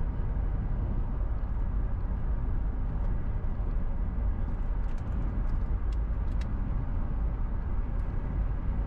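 A car driving at steady speed, heard from inside the cabin: an even, low engine and tyre rumble with road noise.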